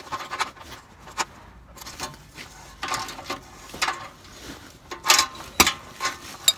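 Metal hand tools clicking, clinking and scraping in irregular bursts during work on a truck's exhaust, with the loudest clacks about five seconds in.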